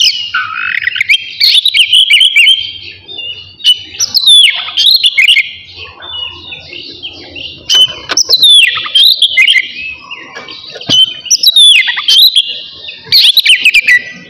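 Oriental magpie-robin (kacer) singing loud, varied phrases of sweeping whistles and rough notes, in bursts every couple of seconds with short pauses between.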